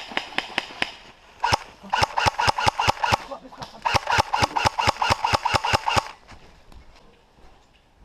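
Airsoft gun firing rapid strings of shots, several a second, in three runs with short pauses between them; the firing stops about two seconds before the end.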